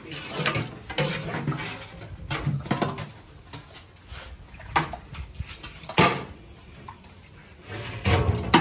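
Metal ladle knocking and scraping against a large aluminium cooking pot and a steel serving plate while mutton stew is ladled out: a few sharp clanks, the loudest about six seconds in and another near the end.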